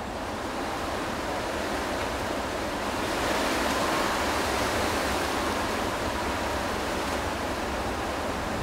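Steady rushing outdoor background noise that swells a little about three seconds in, with faint wavering tones near 1 kHz.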